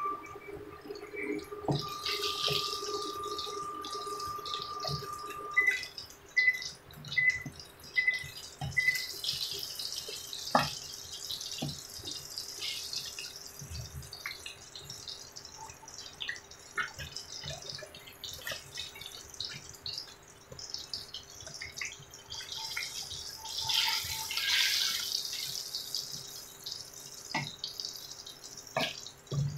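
Breaded eggplant sticks deep-frying in hot oil in a frying pan: a steady sizzle and crackle that swells a few times, with scattered knocks of a wooden spatula against the pan. Five short, evenly spaced beeps sound about six seconds in.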